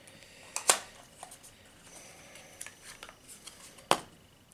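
Small cardboard box of an e-liquid bottle being handled and opened: light rustling and small ticks, with two sharp clicks, one under a second in and one near the end.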